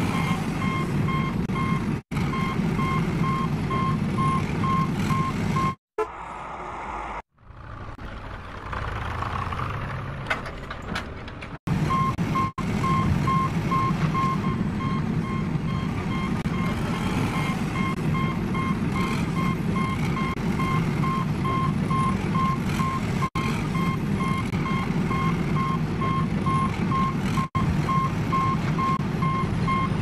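Steady heavy-machine engine hum with a reversing beeper sounding about twice a second. The sound is broken by several short, sudden cut-outs. For a few seconds in the middle the beeping stops and a rougher noise with a few clicks takes its place.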